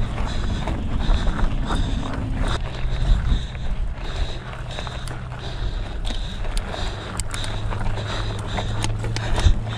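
Hardtail mountain bike being ridden on dirt single track: low wind rumble on the microphone and tyre noise, with frequent short clicks and rattles from the bike over the rough ground.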